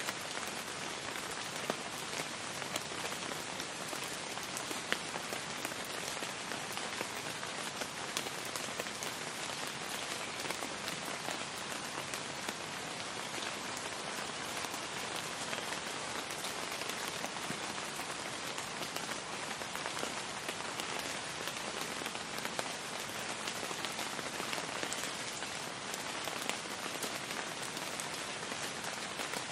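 Steady rain falling, with the patter of many individual drops over an even hiss.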